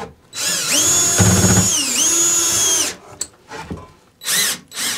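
Cordless drill driving a screw through particle board into a wall stud. Its motor whine runs for about two and a half seconds, dipping in pitch and picking up again as the load changes, and a second short burst follows about four seconds in.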